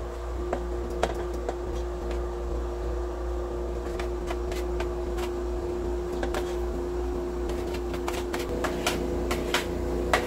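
A small motor or fan humming steadily with one constant tone, with scattered sharp clicks and pops that come more often in the last few seconds.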